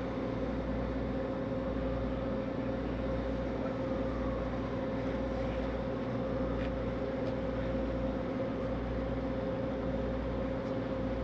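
Passenger ferry's engines droning steadily underway, heard from aboard: an even hum over a low rumble.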